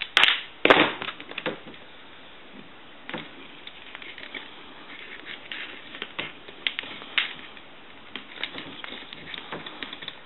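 Handling clicks and light knocks from a Northern Electric three-slot payphone's handset security cable and its retaining key as they are worked back into place. There are two sharp clicks near the start, then irregular smaller clicks.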